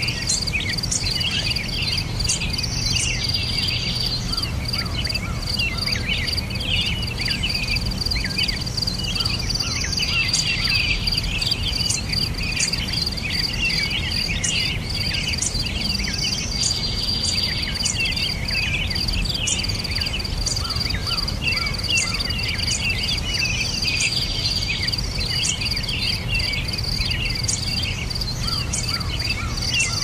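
Crickets singing a steady, unbroken high trill, with many short bird chirps and twitters over it and a low steady background rumble.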